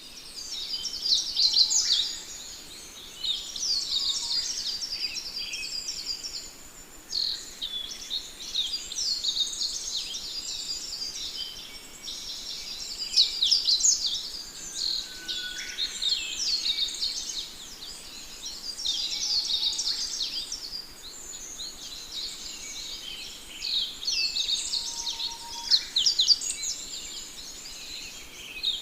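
A flock of sparrows chirping, many short overlapping chirps in a busy chorus that swells and eases every second or two.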